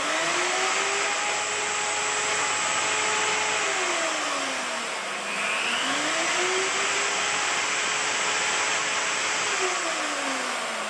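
Makute CP003 1600 W rotary car polisher with a wool bonnet running free at full speed, a steady electric motor whine. It winds down about four seconds in, starts up again a second later, and winds down again near the end.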